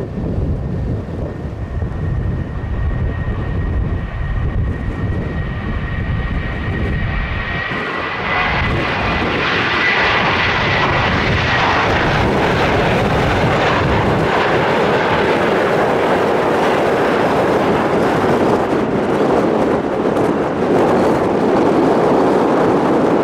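Airbus A320 jet engines throttling up for takeoff. A thin whine climbs slightly in pitch, and then a wide rushing engine noise grows louder and stays loud as the airliner rolls down the runway and lifts off.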